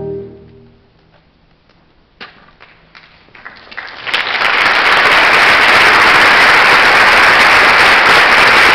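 A concert band's final held chord fades away. After a short hush, a few scattered claps start about two seconds in and swell into full, steady audience applause.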